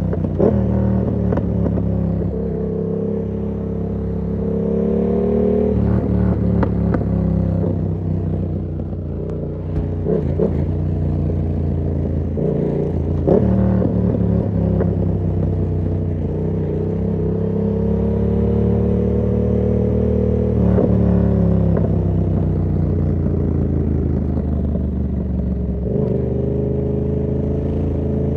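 Yamaha MT-07's parallel-twin engine through an SC Project aftermarket exhaust with its dB killer fitted, riding along with the revs climbing and dropping several times. There are short sharp cracks where the revs change.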